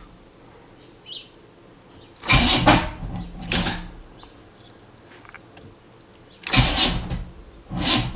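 Car starter motor cranking the engine slowly in short bursts of under a second, about four times, without the engine catching. The slow crank is one that the owner suspects comes from a bad starter.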